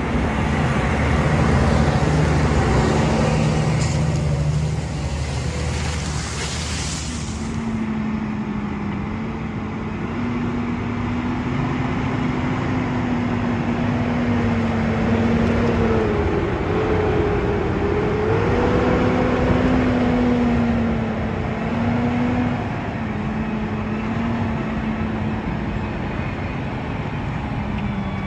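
Claas Axion 930 tractor's six-cylinder diesel engine running steadily under load while pulling a reversible plough through maize stubble; its note dips and rises slightly now and then. A high hiss over the first several seconds drops away.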